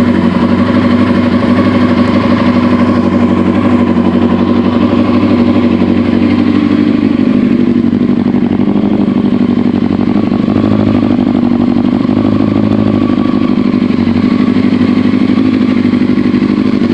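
2001 Yamaha R1's inline-four engine idling steadily, with a knock that the owner takes for a valve knock in the valve cover or a missing plug.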